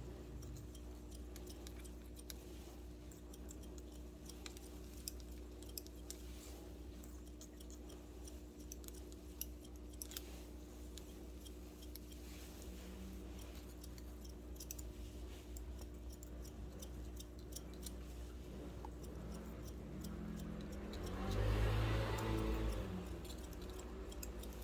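Barber's long shears snipping hair: scattered light clicks over a steady low hum, with a louder swell of sound near the end.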